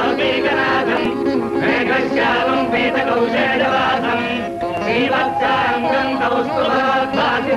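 Devotional music: a voice singing a wavering, ornamented melody over instrumental accompaniment with a steady held note underneath.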